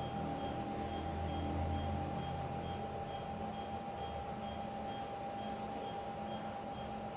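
Faint, rapid electronic beeping from a patient monitor, about three beeps a second, over a steady high whine and low hum of operating-room equipment.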